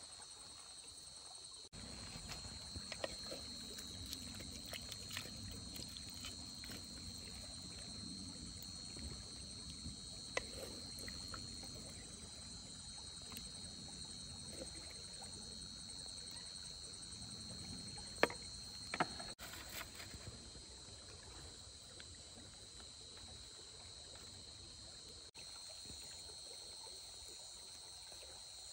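Crickets and other insects trilling steadily at a high pitch over a low, even rushing background, with a few sharp clicks near the middle.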